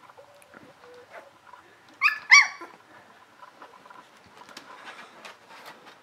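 English springer spaniel puppies: two short, high yelps in quick succession about two seconds in, each falling in pitch. Faint scuffling of small paws on a blanket around them.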